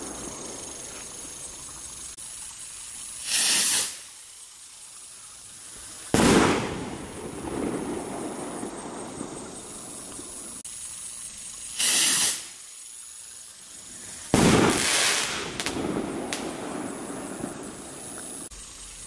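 Firework rockets from a Pyro Mafia Mobsters crate, fired one at a time. Each launches with a short rushing whoosh and bursts with a loud, echoing bang about two and a half seconds later. This happens twice, and a small crack follows the second burst.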